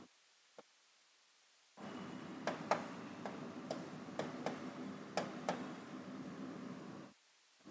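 Irregular sharp taps and clicks of a writing tool on a writing surface, about a dozen, over a faint room hiss. The sound drops to near silence for the first couple of seconds, broken by one tick, and again near the end.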